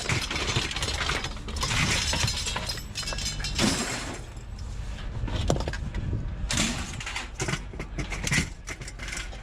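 Scrap metal pieces clanking, scraping and rattling against each other as they are pulled and shifted in a tangled pile, with many irregular sharp knocks.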